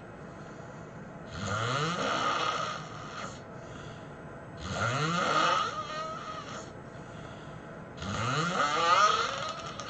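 A person snoring heavily: three loud snores about three seconds apart, each rising in pitch as it goes, with quieter breathing between them.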